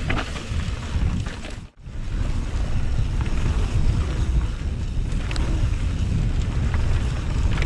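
Wind buffeting an action camera's microphone as a mountain bike descends a rough trail, with tyre and trail noise and occasional clicks and knocks from rocks and the bike. The sound drops out briefly a little under two seconds in.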